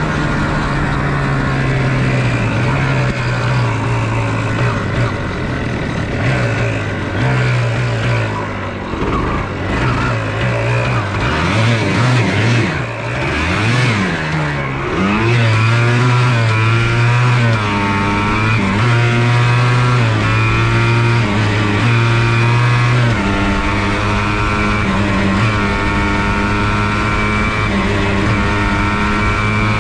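1994 Yamaha Blaster 200's single-cylinder two-stroke engine running under load on a ride, its pitch changing in steps with the throttle and gears. About halfway through, the revs sweep up and down several times, then hold steadier.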